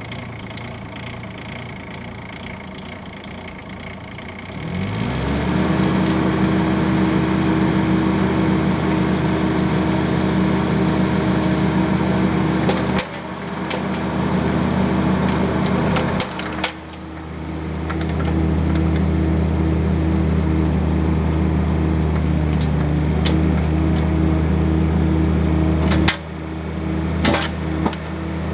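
Bobcat mini excavator's diesel engine idling, then throttled up about four seconds in to a steady high run, dipping briefly twice as it works. A few knocks come near the end.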